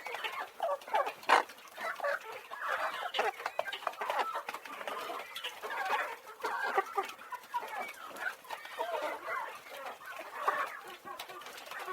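A flock of farm chickens clucking and calling over one another, with a single sharp knock about a second in.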